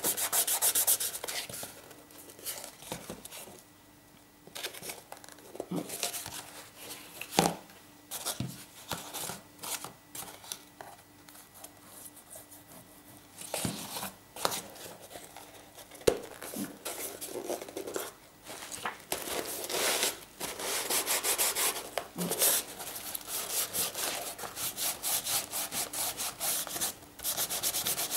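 A hand rubbing and pressing paper onto glued cardboard in scratchy strokes, with a few sharp knocks from the box being handled. The strokes pause now and then and become quick and regular in the last third.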